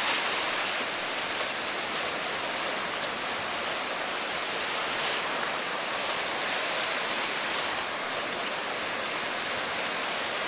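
Ocean surf: breaking waves and foam washing in the shallows, a steady rushing noise.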